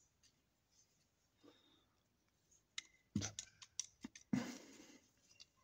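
Faint metal clicks and rattles of a 30 bore pistol's frame and trigger parts being handled and fitted, a cluster of sharp clicks starting about three seconds in, followed by a short scrape.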